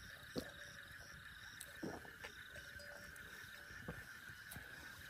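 Faint, steady chirring of night insects such as crickets, with a few soft knocks spread through.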